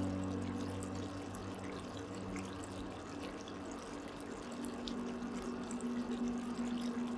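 Soft background music of long held chords that change every few seconds, over a steady watery hiss.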